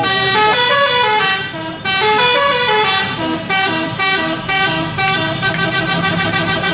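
Bus 'telolet' musical horn playing a melody: a quick run of horn notes that change pitch several times a second, with hardly a pause.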